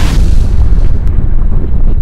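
Logo-reveal sound effect: a loud, deep rumble like an explosion, with a sharp hissing burst at the start and a small crack about a second in.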